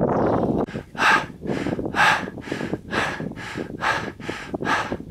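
A person panting hard close to the microphone: quick, heavy breaths, about two or three a second, starting about a second in after a rushing noise. The panting is a sign of being out of breath from the uphill climb on skis.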